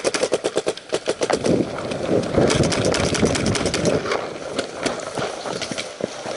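Paintball markers firing rapid strings of shots, about ten a second, through the first second and a half. Then a car engine runs loudly for a few seconds, with a few scattered single shots after.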